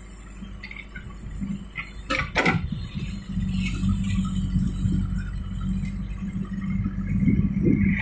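JCB 3DX backhoe loader's diesel engine running steadily under load as the backhoe bucket digs into soil, with a sharp knock about two seconds in.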